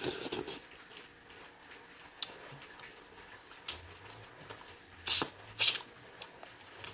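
Close-up eating sounds of a person eating oxtail soup: a few short, wet mouth smacks and lip clicks while chewing and licking the fingers, with a low steady hum setting in about halfway through.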